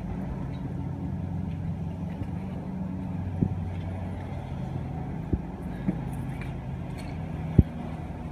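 A steady low mechanical hum, with a few light sharp clicks and knocks from the metal rope-rescue hardware (pulleys, carabiners, ascender) as the haul system's pulleys are reset; the loudest knock comes near the end.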